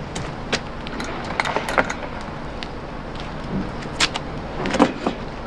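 Scattered metallic clicks and clinks of a spanner working an 11 mm bolt on an antique hand-powered washing machine, with the sharpest click about four seconds in.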